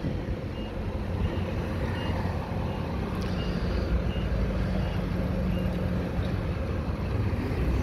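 Forklift engine running as it drives in with a load, with its warning beeper sounding short high beeps about three every two seconds, fading out near the end.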